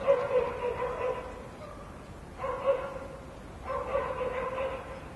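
Dog whining in three long calls, each held at a steady pitch for about a second, with pauses between.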